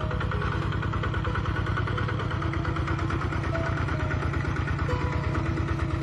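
Kubota RT-120 Plus two-wheel walking tractor's single-cylinder diesel engine running steadily with a fast, even chug as it pulls a plough through the soil. Faint background music with a simple melody plays over it.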